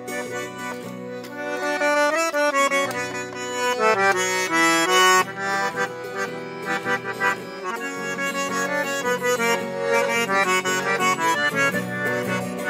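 Accordion playing a traditional Avar melody: a moving tune with quick runs of notes over sustained bass chords.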